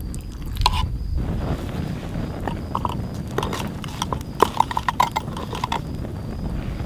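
Metal spoon clinking and scraping in a stainless steel cup, with a quick run of short ringing clinks from about two and a half seconds in. Under it, a campfire crackles over a steady low rumble.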